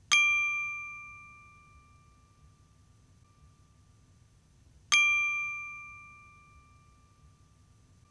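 Two bright bell dings about five seconds apart, each struck once and ringing out over a second or two, as an intro sound effect.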